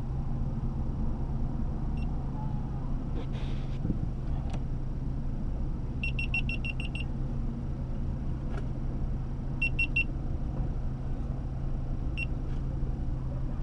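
Steady low drone of a car cabin on the move, with short high-pitched electronic beeps: a single beep, then a quick run of about seven, then about four, and one more near the end.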